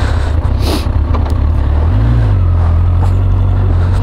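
Yamaha XJ900 Diversion's inline-four engine running under a heavy low rumble as the motorcycle rides along. About two seconds in the engine note rises slightly and then holds steady. A short hiss comes just under a second in.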